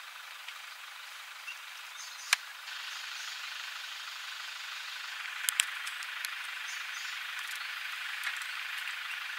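Outdoor bush ambience: a steady hiss that grows a little louder about two and a half seconds in. It is broken by a sharp click a little over two seconds in and a few more clicks around five to six seconds.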